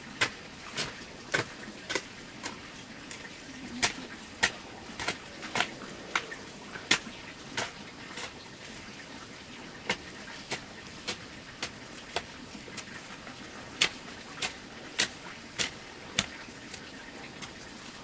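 A series of sharp knocks, mostly about two a second with a few short pauses, over a faint steady hiss.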